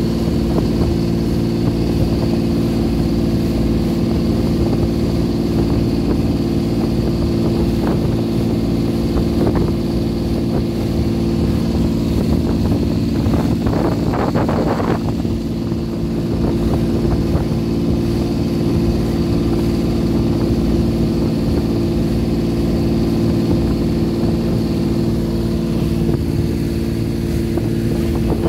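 Motorboat engine running steadily at cruising speed, with water rushing and splashing along the hull. A brief burst of louder noise comes about halfway through.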